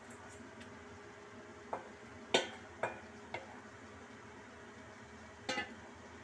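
A spatula knocking and scraping against a wok about five times, the sharpest knock about two seconds in, over a low steady hiss of gravy cooking in the pan.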